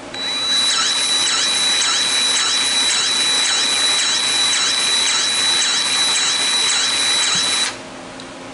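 DeWalt cordless battery grease gun running on its slow setting: a steady high motor whine with a rhythmic pump stroke about twice a second. It forces grease into a power-seat jack until the jack is packed full, then cuts off suddenly near the end.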